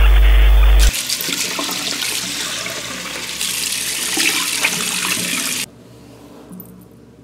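A loud electronic buzz, a TV-static glitch transition effect, for about the first second, then a washbasin tap running hard as water is splashed onto a face. The running water cuts off suddenly near the end.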